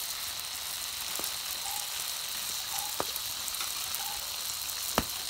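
Kokis frying in hot oil: a steady sizzle with fine crackling, and a few sharper pops about one, three and five seconds in.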